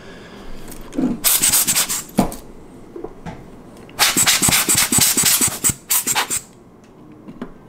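Close-up rubbing and scratching of a small hand tool and fingers working at a Nikon F3 camera body's focusing-screen opening. It comes in two stretches of rapid scratchy strokes, a short one about a second in and a longer one from about halfway, then goes quieter near the end.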